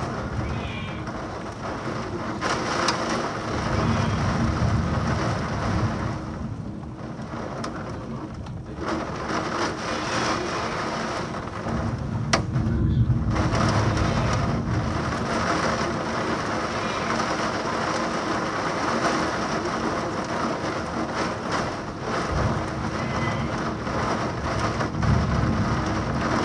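Heavy rain pouring down steadily in a severe thunderstorm, with thunder rumbling low three times and a single sharp crack near the middle.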